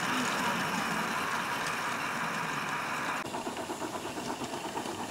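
Miniature railway locomotive running: a steady hiss, then, after a cut about three seconds in, a fast regular beat.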